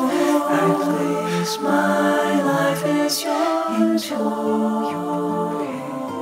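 Voices singing a hymn unaccompanied in harmony, with sustained notes that change pitch together, growing a little softer toward the end.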